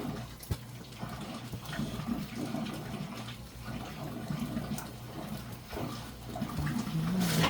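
Eel sizzling over a charcoal grill, a steady hiss dotted with irregular small crackles and pops.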